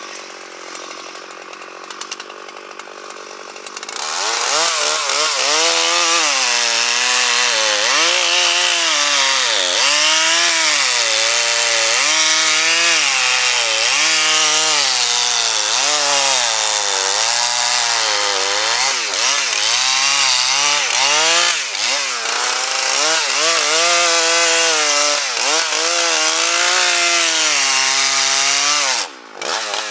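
Gas chainsaw cutting a pine log. It is quieter for the first four seconds, then runs at full throttle with its pitch sagging and recovering over and over as the chain bites, and drops off briefly near the end.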